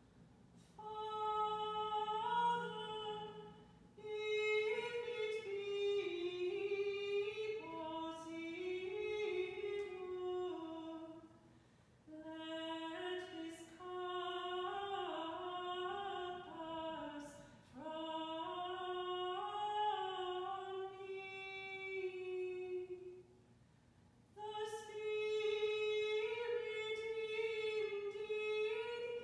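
A single woman's voice singing unaccompanied liturgical chant. The slow melody moves in long phrases broken by short breaths, with the longest pause, about a second, near the end.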